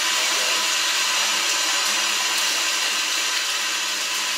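Kitchen faucet running in a steady stream, the water splashing onto a silicone oven mitt held under the tap in the sink as the mitt is washed.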